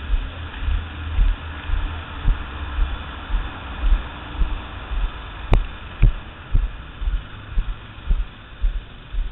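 Walking footsteps on pavement, heard as low, even thumps about two a second through a helmet-mounted camera, over a steady hiss. A sharp click about halfway through, with a weaker one half a second later.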